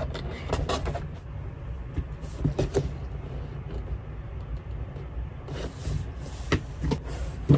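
Light knocks and clicks of objects being handled, scattered and sharpest near the end, over a steady low rumble.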